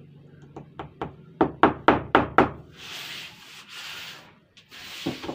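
About six quick knocks on a thin wooden door panel, several a second, then a hand rubbing across the sheet's surface, and one more knock near the end.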